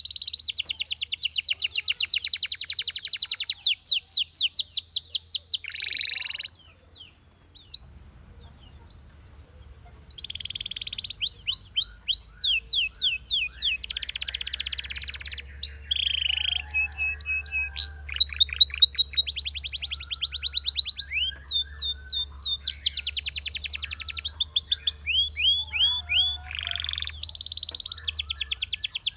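Belgian canary singing fast trills of rapidly repeated notes. About six seconds in the song breaks off for a few seconds, with only a few single chirps, then the trilling resumes and runs on.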